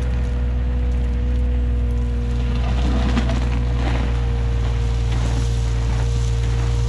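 John Deere 35G mini excavator's diesel engine running steadily, with a steady whine over it. There are a few knocks and rattles about three to four seconds in.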